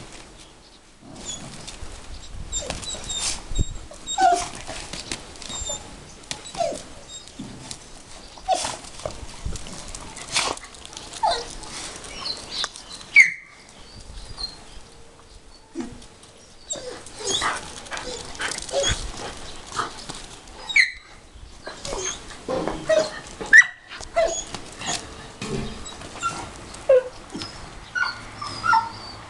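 Dogs meeting and milling about, giving short whimpers and yips every second or two.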